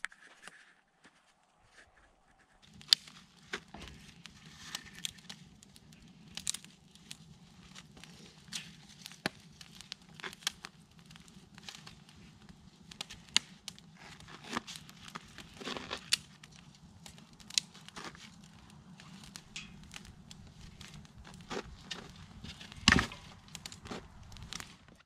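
Small wood campfire crackling, with frequent sharp snaps as dry twigs and sticks are broken and fed into it, from about three seconds in; one loud snap near the end.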